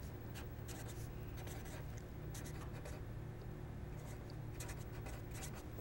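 Black marker writing a few words on paper in short, irregular strokes, over a faint steady low hum.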